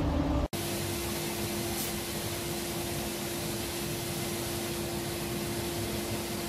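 A louder low machine drone cuts off abruptly about half a second in. After it, a steady mechanical hum with one held tone runs on evenly, the background noise of a running machine such as a fan or extractor in the workshop.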